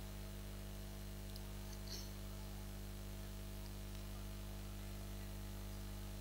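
Steady low electrical hum with a flat hiss, and a faint click about two seconds in.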